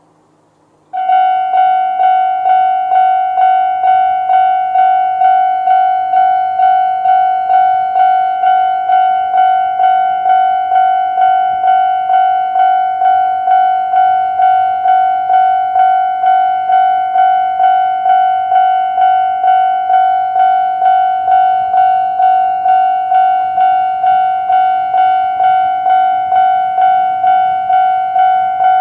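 Japanese railway level-crossing warning bell, the old-type standard electronic sound, starting about a second in and then dinging steadily at a little under two strikes a second.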